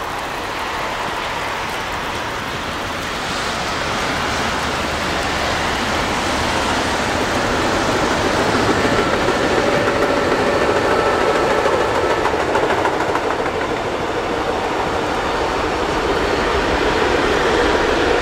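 Electric locomotive hauling a freight train approaching and running past, growing louder, with the rumble and clatter of the freight wagons rolling by after the locomotive passes, about halfway in.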